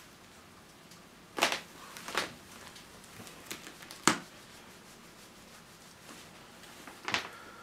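A quiet room with a few short, scattered taps and rustles, four or five in all, the sharpest about a second and a half in and about four seconds in.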